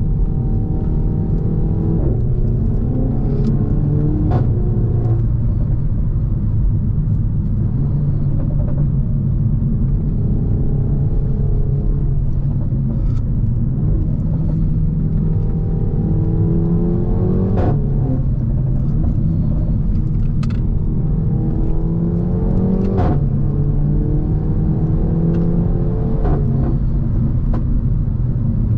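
Renault Mégane 4 RS 280's turbocharged 1.8-litre four-cylinder running through a catless exhaust while driving: a steady low drone, with the engine note climbing and dropping several times. Sharp exhaust cracks stand out where the note drops, about four seconds in, around seventeen seconds and again around twenty-three seconds.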